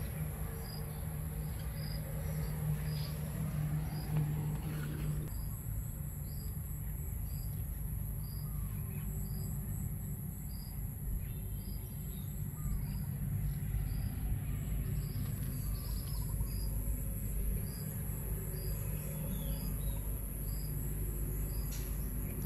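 Outdoor insect and bird ambience: a steady high-pitched insect drone, with a short chirp repeating a little more than once a second, over a low steady rumble.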